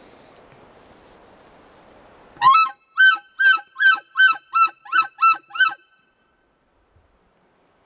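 Elk calling: one short rising squeal, then eight short, sharp, high-pitched calls in quick succession, about three a second, loud and close.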